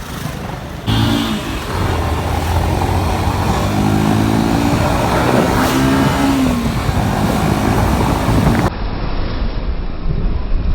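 Motorcycle running on the road while being ridden, with engine and road noise; the engine pitch rises and falls midway. The sound changes abruptly about a second in and again near the end.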